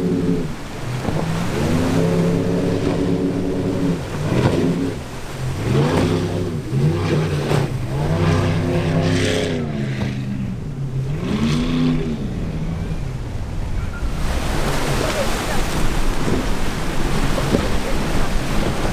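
Boat engines running through rough inlet waves, their pitch rising and falling again and again as the throttle is worked over the swells. From about two-thirds of the way in, a steady rush of surf and wind takes over.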